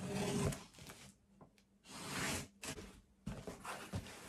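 Packing tape on a cardboard box being slit with a small blade, two scratchy rasping strokes, then a few light knocks as the flaps are opened.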